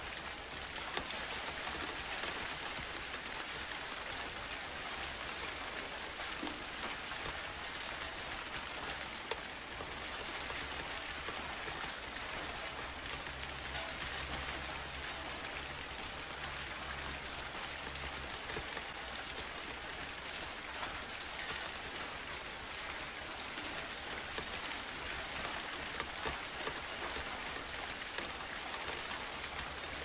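Steady rain falling, an even hiss with many individual drops ticking through it.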